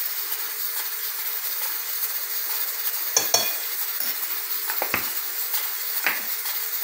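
Steady sizzling hiss of food cooking, with a few light clinks of a metal spoon against glass spice jars and their lids about three, five and six seconds in.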